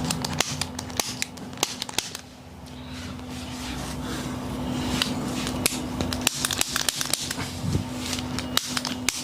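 Chiropractic adjustment: a run of sharp, irregular clicks and cracks, over a steady low hum.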